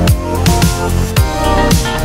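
Background electronic music with a steady drum beat, about two beats a second.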